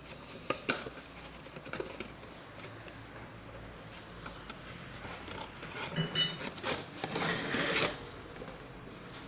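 Scattered light clinks and knocks of kitchen utensils and dishes being handled, with a short rush of noise about seven seconds in.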